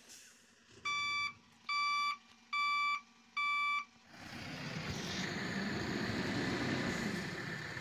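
A vehicle's reversing alarm beeping four times in a steady on-off rhythm. About four seconds in, a heavy vehicle's engine takes over, running steadily with a rushing noise.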